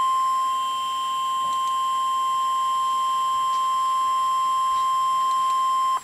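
NOAA Weather Radio's 1050 Hz warning alarm tone: a single steady high tone signalling an Emergency Alert System warning, which stops abruptly at the end.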